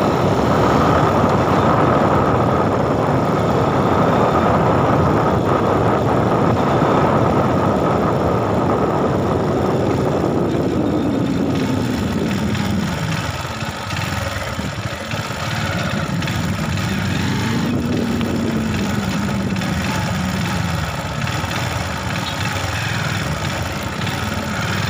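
Motorcycle engine running while riding, mixed with steady road and wind noise; the engine note drops about halfway through, then climbs again.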